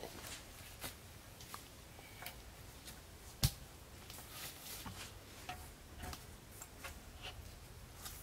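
Twigs and wood giving scattered light clicks and snaps at an irregular pace, with one sharp knock about three and a half seconds in.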